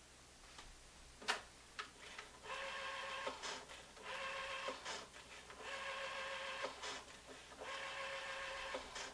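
Rotary-dial telephone being dialled: a sharp click about a second in, then four whirring runs of the dial spinning back, each about a second long, with small clicks between them as the finger sets the dial again.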